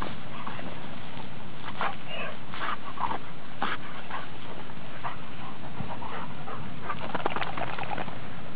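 A red setter rolling on its back in dry scrub and grass, making scattered rustles and short crackles of brush. They are busiest about seven seconds in, over a steady hiss.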